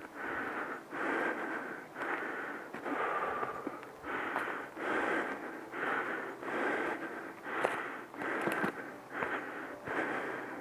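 A hiker's heavy breathing close to the microphone: short rushes of air at a steady pace, about one a second, with a faint whistle in them. A few sharp clicks come near the end.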